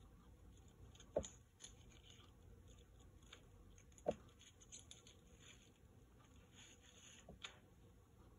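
Kitchen knife cutting up a raw whole chicken on a plastic cutting board. Two sharp knocks of the blade on the board, about a second in and about four seconds in, with fainter taps and soft handling noises between; quiet otherwise.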